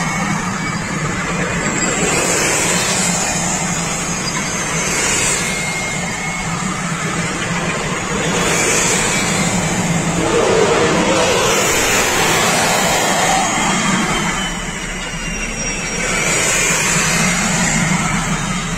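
A column of tracked armoured vehicles driving past, heard from inside a car: a steady noise of heavy engines and tracks that swells and fades several times as vehicles go by.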